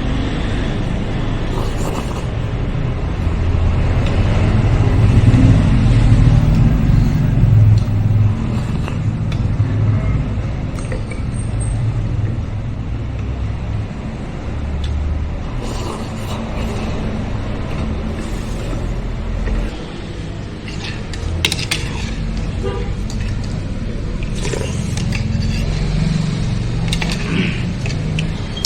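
Steady low rumble of road traffic, swelling for a few seconds early on, with a few sharp clicks scattered through it.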